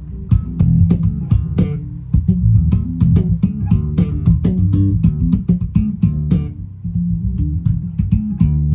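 Ray Rogers R Bass Custom 6 six-string electric bass played solo: a quick line of plucked low notes, each with a sharp, percussive attack, with a brief lull about six and a half seconds in.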